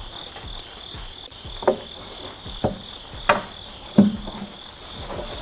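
Steel wire smoker shelf knocking and clanking against the rails of an insulated vertical smoker as a loaded rack of wings is slid back into the cabinet: four sharp knocks, the last ringing briefly. A steady high-pitched hum runs underneath.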